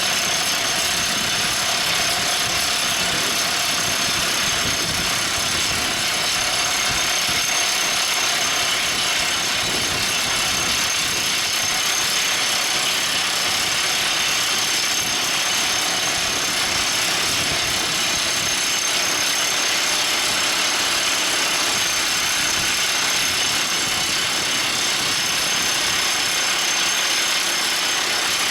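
Everdigm ECD45E top hammer drill rig running: a steady, unbroken mechanical noise with a constant high-pitched hiss, at an even level throughout.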